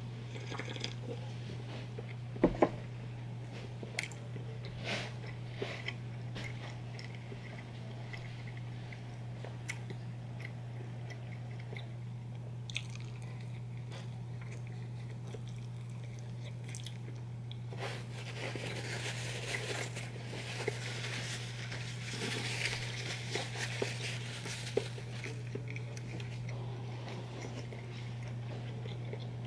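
Close-miked eating sounds: biting into and chewing a sausage, egg and cheese English muffin, with wet mouth clicks and a denser spell of chewing past the middle. A pair of sharp knocks about two and a half seconds in are the loudest sounds, over a steady low hum.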